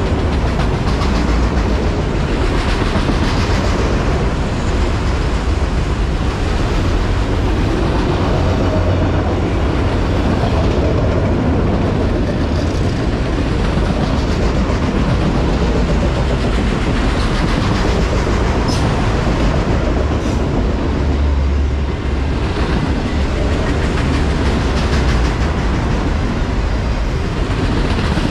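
Autorack cars of a CPKC freight train rolling past close by, their steel wheels making a steady, unbroken rolling noise on the rails.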